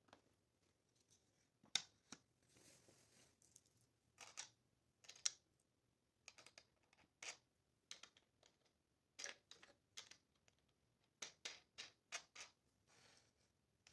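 Faint, irregular clicks, taps and short scrapes of small objects being handled, with no steady machine sound.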